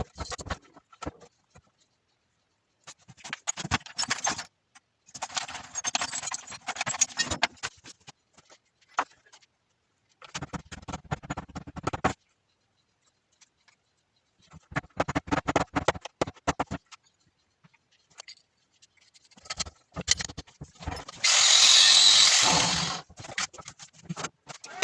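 Workshop handling noises in short separate bursts: clinks, taps and scrapes of small metal parts. Near the end, a loud hiss lasting about a second and a half.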